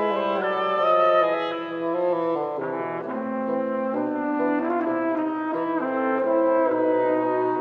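Woodwind quintet of flute, oboe, clarinet and bassoon, with alto trumpet, playing a Cuban dance, the instruments holding notes together in moving chords.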